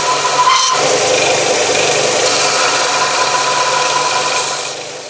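Bench belt sander running, with a short piece of wooden dowel held end-on against the belt to flatten its face. Steady sound that fades away near the end.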